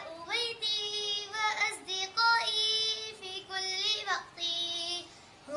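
A young girl singing an Arabic nasheed in one voice, in phrases of held, bending notes, pausing for about a second near the end.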